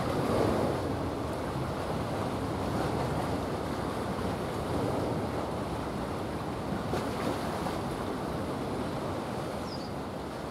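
Steady rushing of wind and water, with waves washing and wind on the microphone; no distinct engine tone stands out.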